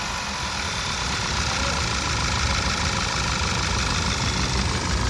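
Skoda Superb petrol engine running steadily with no misfire on cylinder 1, its oil-fouled spark plug and ignition coil cleaned. The oil had leaked from a failed valve (tappet) cover seal.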